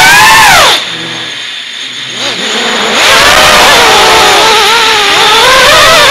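FPV quadcopter's brushless motors and propellers whining, heard from the quad's own camera. The whine rises, then falls away sharply about a second in and stays low for about two seconds. It then climbs back and wavers up and down in pitch as the throttle changes.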